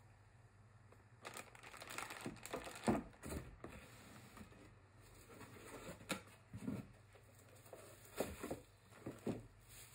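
Cardboard box and plastic packaging being handled, rustling and crinkling in irregular bursts, with a few knocks, the loudest about three seconds in.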